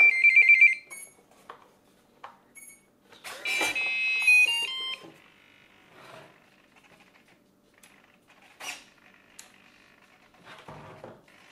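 Power-up beeps from the Nimbus 1800 VTOL's onboard electronics just after its battery is connected. A rapid run of high beeps comes at the start, then a short tune of stepped electronic tones about three and a half seconds in. Faint clicks and handling sounds follow.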